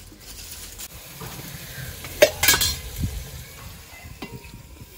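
Spices going into hot oil in a steel pot over a wood fire, sizzling. Steel vessels and the ladle clink against the pot a few times about two seconds in, with a low rumble of wind on the microphone.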